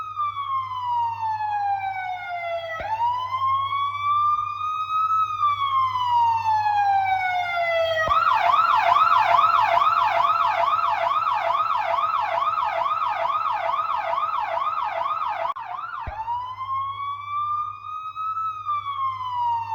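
Electronic siren sounding a slow wail that rises and falls in pitch. It restarts about three seconds in, switches to a rapid yelp of about three warbles a second about eight seconds in, and goes back to the slow wail about sixteen seconds in. A low steady hum runs beneath it.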